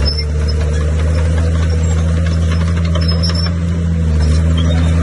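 Bulldozer's diesel engine running steadily under load with a deep, even drone. Faint high squeaks come in about three seconds in.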